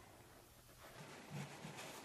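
Near silence: room tone, with a few faint soft handling noises in the second half.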